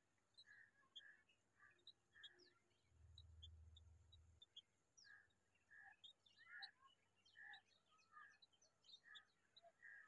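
Bulbul nestlings giving faint, short begging chirps about two a second, with fainter higher ticks, pausing briefly. A low hum runs for about a second and a half, about three seconds in.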